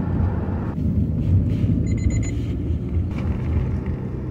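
Steady low rumble of a road vehicle driving through city streets, with a short run of rapid high beeps about two seconds in.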